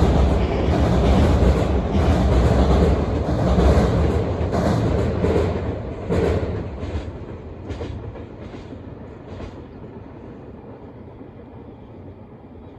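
Train passing close by, a loud rumble with the wheels clicking over rail joints; about halfway through the rumble falls away and the evenly spaced clicks, slowing and fading, trail off as the train leaves.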